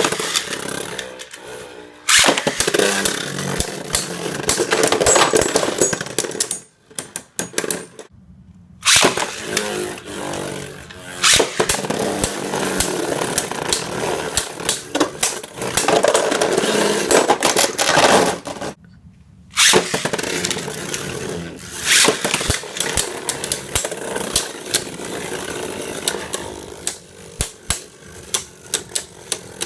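Beyblade Burst spinning tops launched into a plastic stadium, whirring and rasping as they spin and clatter against each other. Several rounds are separated by short silent gaps, and a run of quick sharp clicks comes near the end.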